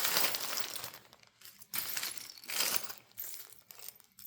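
Small pieces of costume jewelry clinking and jangling together in irregular bursts as they are handled and sorted through.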